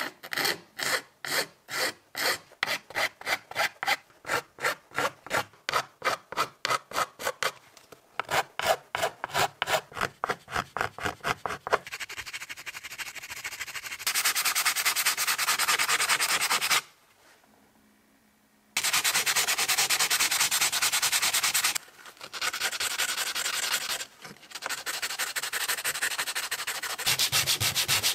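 Hand file scraping across the edge of an angle grinder's plastic housing in quick repeated strokes, about two or three a second, for roughly the first twelve seconds. Then the plastic housing is rubbed against sandpaper discs in steady bouts of sanding, with a short pause partway through.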